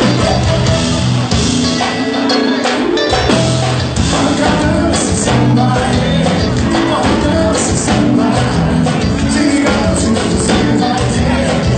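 Live band music with a male singer, heard from the audience at a concert: electric guitar, drums and percussion. About two seconds in, the low bass and kick drop out for about a second, then come back in.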